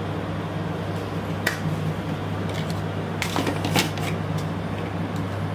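Short rustling and clicking handling noises over a steady low hum, most of them in a cluster a little past three seconds in.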